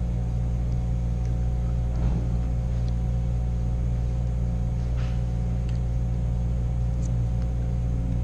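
A steady low machine hum, with a couple of faint steady tones above it. A few faint clicks come as food is picked from a foil pan.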